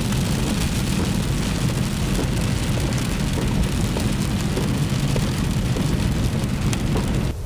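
Rain hitting a car's windscreen and roof as many small irregular ticks over the steady low rumble of the engine and tyres on a wet road, heard from inside the car. It stops abruptly near the end.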